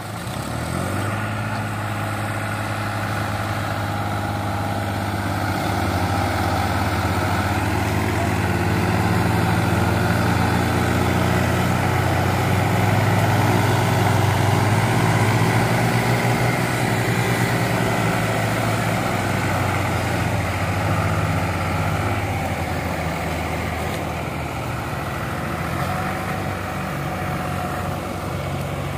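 Diesel engine of a John Deere tractor working hard as it hauls a heavily loaded sugarcane trolley across a field, a steady low engine drone. It grows louder through the middle and eases off in the later part.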